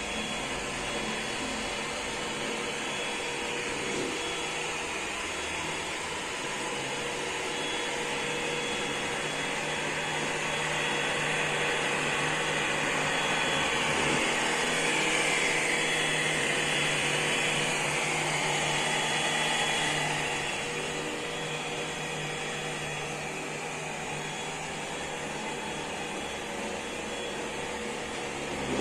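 Ecovacs Deebot X9 Pro Omni robot vacuum running: a steady whirring motor-and-fan noise with a thin whine over it, growing louder partway through and then easing back.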